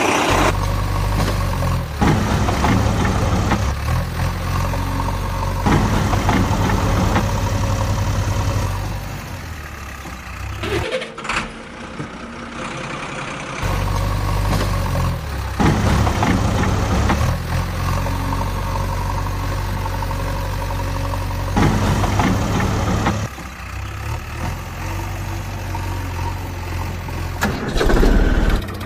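A heavy vehicle engine running with a steady low rumble. The sound shifts abruptly every few seconds and cuts out for about three seconds near the middle before resuming.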